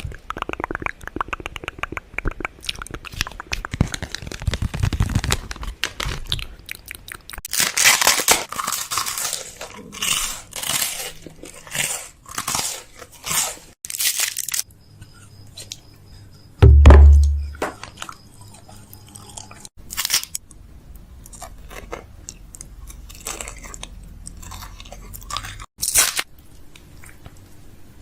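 Close-miked crunching and crackling in short bursts, with a single loud low thud about seventeen seconds in.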